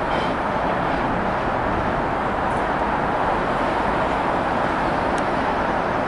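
Steady outdoor background roar that neither rises nor falls, with two faint ticks in the middle.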